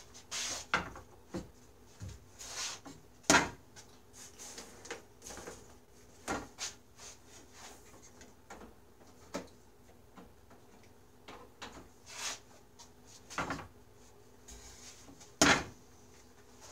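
Scattered knocks, taps and clatters of handling at a wooden workbench as a pine board is set against the miter saw fence and power cords are moved, with two sharper knocks about three seconds in and near the end. The saw is not running.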